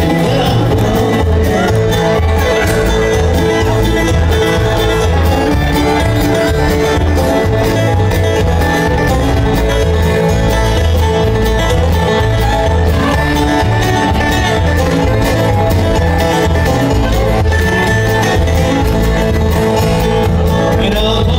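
Live bluegrass string band playing an instrumental passage with no singing: banjo, mandolin, acoustic guitars, fiddle and upright bass over a steady bass pulse.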